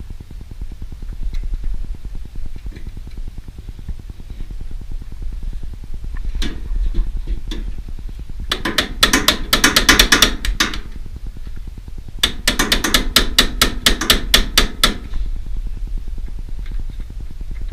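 Hammer tapping a dowel pin through the starter assembly on a Briggs & Stratton engine. There are a few light knocks first, then two runs of rapid taps, each a couple of seconds long, starting about halfway through.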